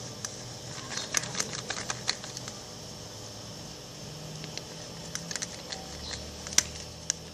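Slime mixture of PVA glue and laundry powder being stirred: irregular light clicks and ticks of the stirring utensil against the container, in clusters with a quieter stretch in the middle.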